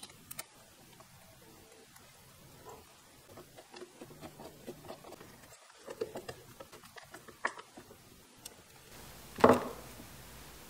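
Small clicks, taps and scrapes of a screwdriver driving the little screws of the air cutoff valve cover into an aluminium Honda CX500 carburetor body, with a single louder knock about nine and a half seconds in.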